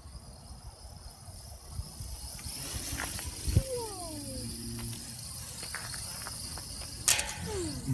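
Traxxas Alias quadcopter's motors buzzing high-pitched in flight over a low rumble. A short falling voice-like sound comes about three and a half seconds in, and a sharp click and another falling voice-like sound come near the end.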